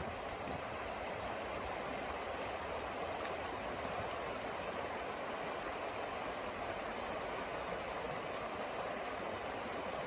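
Shallow, fast river running over rocks, a steady rush of flowing water.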